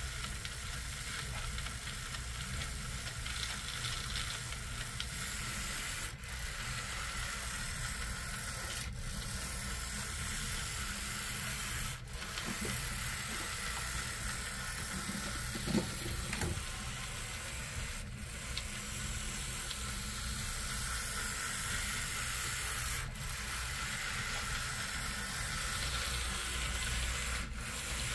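HO-scale Athearn Blue Box model locomotive running steadily on its track under a newly fitted Digitrax DH126 DCC decoder: the motor and gear drive give a continuous whir, with brief dips every few seconds.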